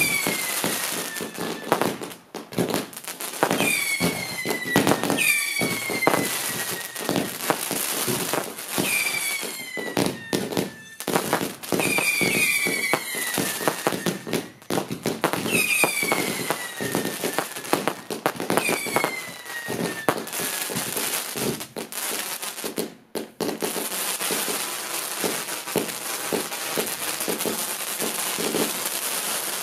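Fireworks going off: a fast string of bangs and crackles over a steady hiss, with a falling whistle every few seconds. The whistles stop about two-thirds of the way through, leaving hiss and scattered crackles.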